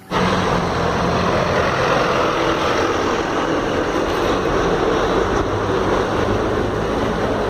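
City bus driving past close by, its engine running steadily with road noise.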